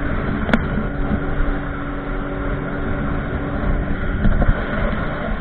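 Jet ski engine running steady under a rush of water and wind, with a sharp click about half a second in. The engine tone fades out about four seconds in.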